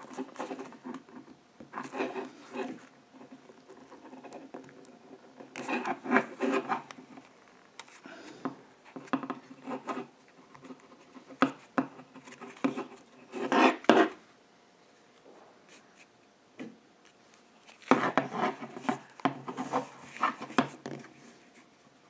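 Hands rubbing and flexing a piece of glued leather, in irregular bursts of rustling and scraping with short quiet gaps between them.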